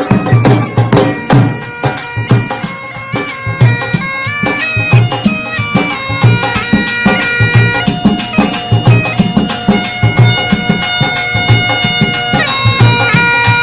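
Background music: a reedy wind-instrument melody of held, stepping notes over a steady drum beat.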